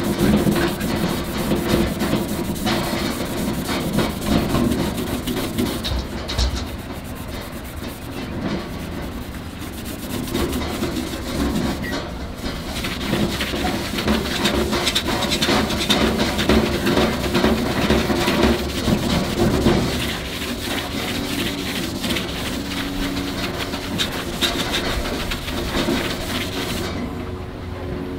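Red Scotch-Brite abrasive pad scrubbed back and forth by hand over the 316 stainless steel body of an M16 charcoal grill: a continuous rhythmic rasping rub. The pad is putting a brushed grain finish on the steel and taking out blemishes.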